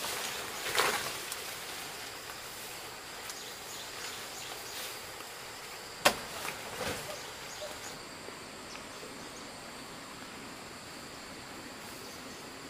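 Outdoor ambience with faint steady insect sound, a sharp single knock about six seconds in, and a couple of brief rustling or scraping swells.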